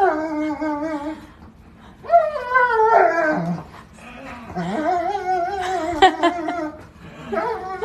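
A dog giving three long, wavering whining howls.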